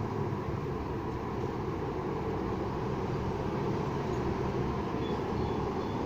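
Steady rumble of road traffic, with wind in the leaves.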